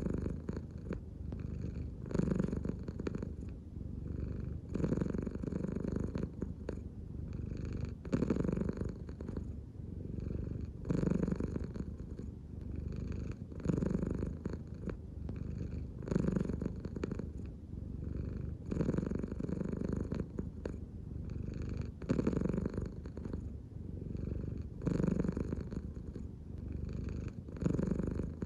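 American Shorthair cat purring steadily, the rumble swelling and easing with each breath about every three seconds, purring through both breathing in and breathing out.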